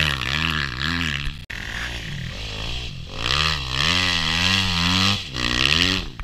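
Motocross bike engines revving as the bikes ride past, the pitch rising and falling over and over with throttle and gear changes, with a sudden cut about a second and a half in.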